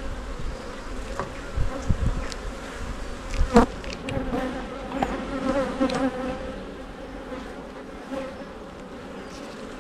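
Honey bee colony buzzing around an opened hive during inspection, a steady hum, with a few light clicks and a sharp knock about three and a half seconds in.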